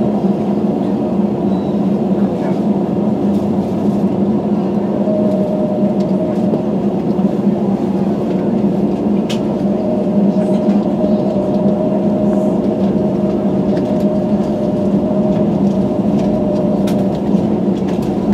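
Steady hum and rush of air inside an Airbus A321 cabin parked at the gate, with several even, unchanging tones and a few faint clicks.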